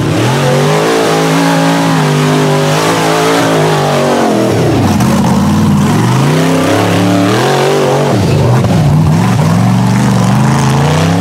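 Off-road rock buggy's engine revving hard under load as it climbs, its pitch rising, holding, then falling away and rising again several times.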